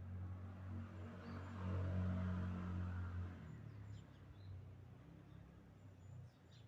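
A motor vehicle's low engine hum swelling and then fading, as of a vehicle passing by, loudest about two seconds in. A few faint bird chirps come through above it.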